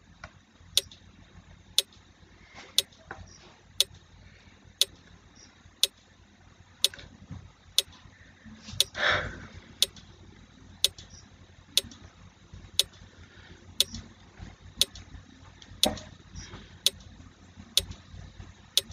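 A quiz countdown timer's clock-tick sound effect, ticking once a second. A brief, louder noise comes about halfway through.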